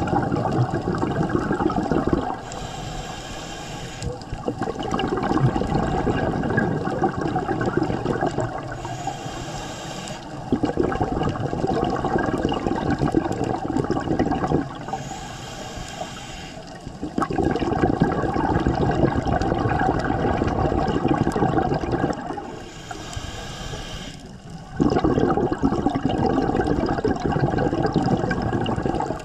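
Scuba diver breathing through a regulator underwater: loud bubbling exhalations alternate with quieter hissing inhalations, about four full breaths, each roughly six seconds long.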